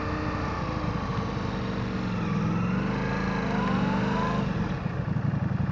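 Ducati motorcycle engine running at low speed, its pitch rising and falling a little in the middle. Near the end it settles into an even, pulsing low-rpm beat.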